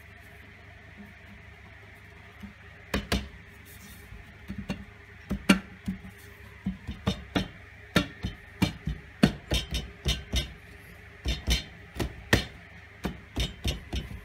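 Irregular clicks and knocks of hard parts being handled as a wooden lid with brackets and rods is pushed and fitted onto a glass tank. A pair of knocks about three seconds in, then knocks coming several a second from about five seconds in.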